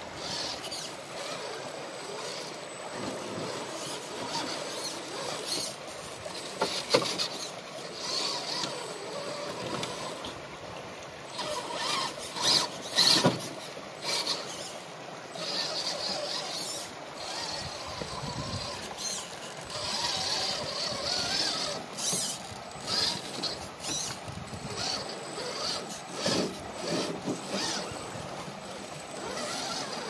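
Redcat Gen8 RC rock crawler working up a rock slab: its electric motor and gears whine in uneven spurts as the throttle is worked. The tyres scrape and knock on the stone, with sharp clicks, over the steady rush of a creek.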